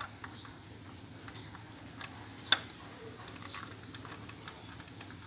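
Plastic trim clip being pressed by hand onto a mount on the back of a plastic pickup front grille: small scattered clicks and scrapes, with one sharp snap about two and a half seconds in.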